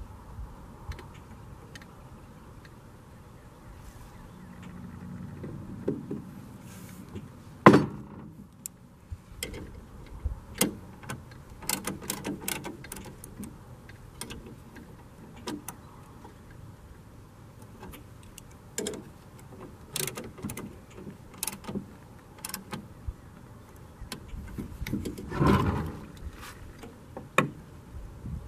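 Scattered clicks, knocks and scrapes of a chainsaw mill's metal frame and clamps being handled and adjusted on the saw bar, with one sharp knock several seconds in and a short clatter near the end.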